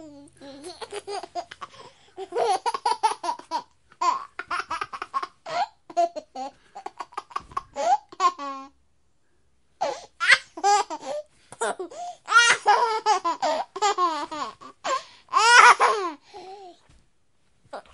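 A baby laughing in repeated high-pitched bursts of giggles, with a pause of about a second halfway through.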